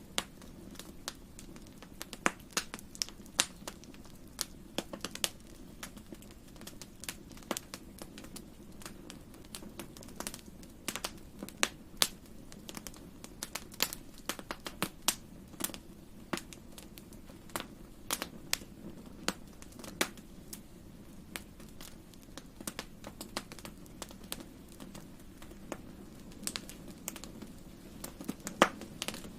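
Fire crackling in a fireplace: irregular sharp pops and snaps, several a second at times, over a steady low rumble of burning.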